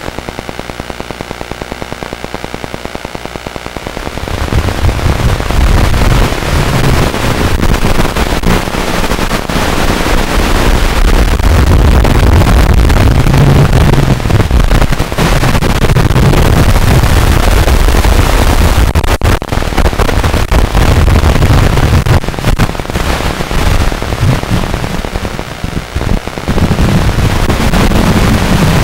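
Nano 1S FPV quadcopter's motors and propellers, heard through its own onboard microphone: a quieter fluttering buzz at first, then about four seconds in a loud, distorted, clipping noise as it lifts off and flies, easing off briefly near the end.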